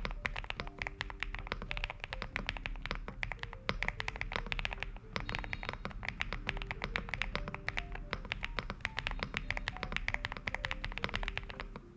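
Stars75 mechanical keyboard fitted with magenta switches being typed on quickly, a dense run of key clacks several per second. Soft background music with held notes plays underneath.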